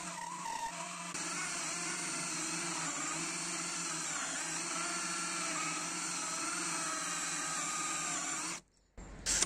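DeWalt DCD777 20V brushless cordless drill running at high speed, driving a dull hole saw into wood. The motor's whine wavers steadily as it labours to cut, then stops abruptly near the end.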